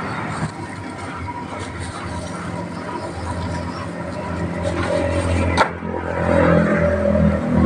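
Road traffic running steadily, with a motor vehicle passing and growing louder about six seconds in, and a single sharp click just before it.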